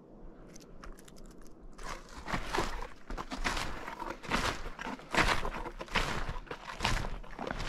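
Snowshoes crunching and compressing snow with each step, in a steady walking rhythm of about one step a second. The steps start about two seconds in, after a quieter stretch with a few faint light ticks.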